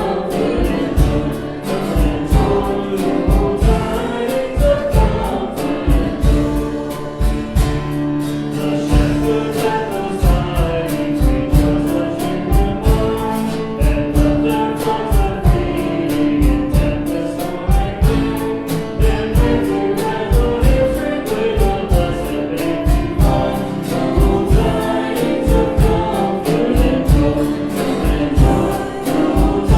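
Christian worship song: several voices singing together over instrumental backing with a steady beat.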